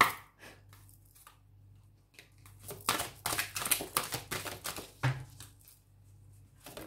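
Oracle card deck being shuffled by hand: a quick run of card clicks and slaps lasting a couple of seconds midway, with single sharp taps of the cards near the start and at the end.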